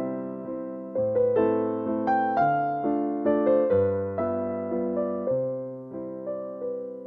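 Background piano music: gentle notes struck one after another over low held bass notes, each dying away after it is struck.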